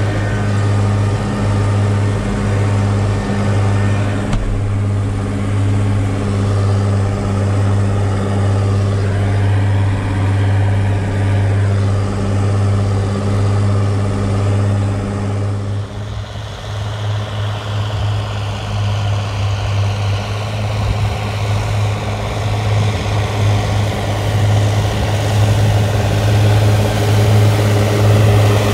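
Massey Ferguson 6180 tractor's straight-piped engine running steadily under mowing load, a strong low hum. The sound changes about halfway through, from the cab to outside, and grows louder toward the end.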